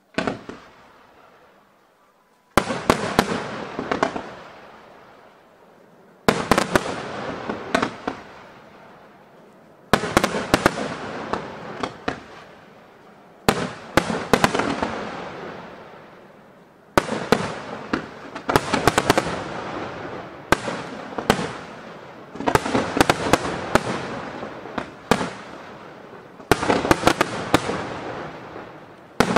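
Aerial firework shells bursting in volleys: a cluster of sharp bangs every few seconds, each followed by a fading hiss and crackle of falling sparks.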